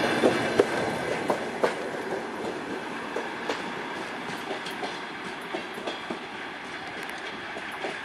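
Passenger coaches' wheels clicking over the rail joints as the tail of a departing train moves away, the clatter fading steadily as it recedes.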